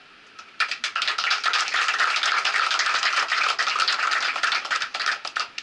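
A small audience applauding, a crowd of hand claps starting about half a second in and stopping just before the end.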